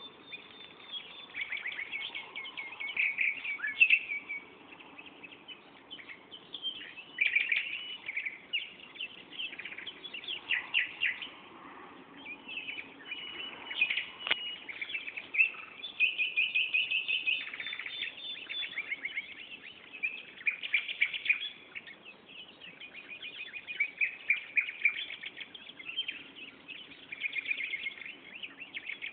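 Many songbirds chirping and trilling at once, in overlapping bursts of rapid high notes that never stop for long.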